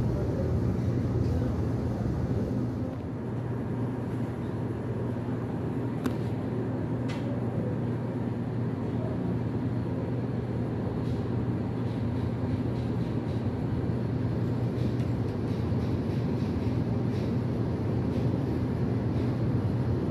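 Steady low hum and rumble of LRT Line 1 light-rail trains running across a river bridge at a distance, with two faint ticks about six and seven seconds in.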